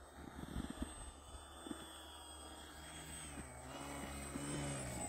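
Brushless 2212 1400kv electric motor and pusher propeller of a homebuilt foam-board RC plane whining, its pitch dipping and then climbing in the second half. A few low thumps sound in the first second.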